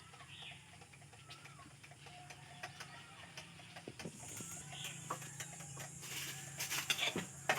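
Irregular sharp clicks and scrapes, growing busier and loudest near the end, over faint short bird-like calls of farmyard fowl.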